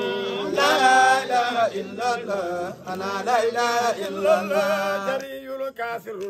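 A man's voice chanting devotional Arabic verse, with long held notes that bend in pitch and short breaks between phrases.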